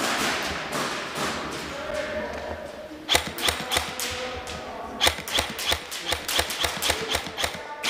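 Rapid airsoft gunfire: a quick string of sharp snapping shots about three seconds in, then a longer string from about five seconds, at roughly six or seven shots a second. A rushing hiss fills the first few seconds.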